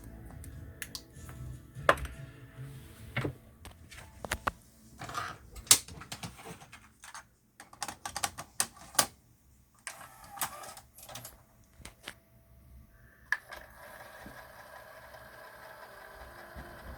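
Sony TC-K870ES cassette deck's tape transport clicking and clunking as its controls are pressed and the mechanism shifts between modes, with its mode belt newly replaced. About 13 seconds in, a steady whir starts as the transport runs.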